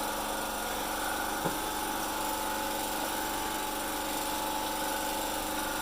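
Steady mechanical hum of a small motor running at an even speed, with a single click about one and a half seconds in.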